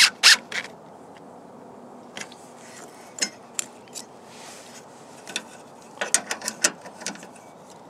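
Scattered metal clicks, then a quick run of ratchet-wrench clicks about six seconds in, as the bolts holding the air suspension compressor's bracket are tightened.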